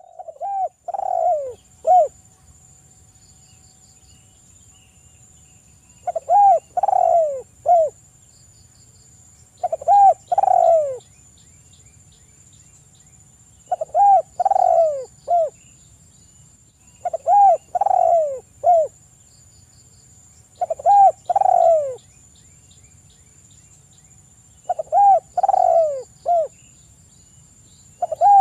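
Spotted dove cooing, its call repeated about every three to four seconds, each phrase three or four low falling coo notes. A steady high-pitched whine runs underneath.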